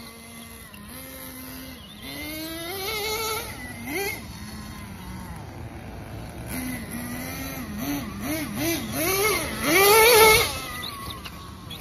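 The glow-fuel engine of an XTM X-Cellerator RC truck running and revving in repeated bursts, its pitch climbing and falling, with a run of quick blips and then the loudest, highest rev near the end. The engine is burning 0% nitro fuel, just methanol and castor oil, with the needle leaned out.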